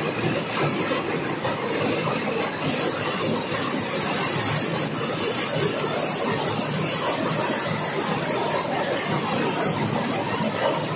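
Heavy rain pouring down: a loud, steady, unbroken rush of rainfall.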